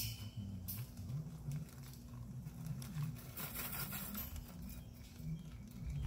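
Hands fastening a cattle-panel trellis to a post: small clicks and a brief crinkling rasp about three and a half seconds in, over a low wavering sound.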